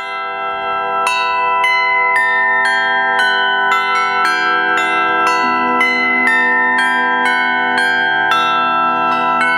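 Tuned bells struck in a steady run of about two strikes a second, each note ringing on beneath the next; the sound swells in over the first second.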